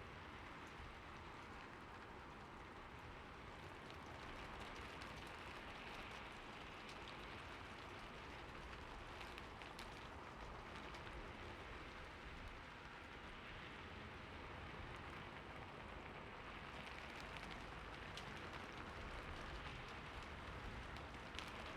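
Soft, steady rain falling on city surfaces, with a few faint individual drop ticks.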